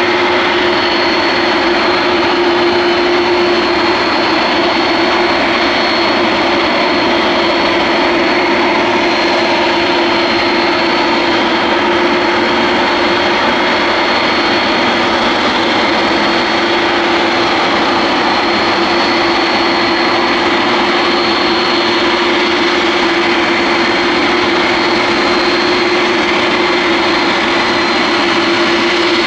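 Boeing 747-400F freighter's four jet engines running at a steady setting, a loud even rush with a steady low hum and a thin high whine that hold unchanged throughout.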